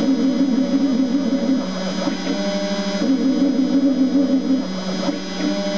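CNC spindle running with a small end mill cutting a maple pickup cover: a steady buzzing hum whose tone shifts every second or two as the cutter changes its path.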